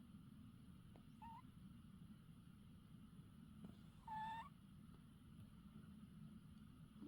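Squeaky snores: two short high-pitched squeaks about three seconds apart, the first faint and the second louder, rising in pitch at its end.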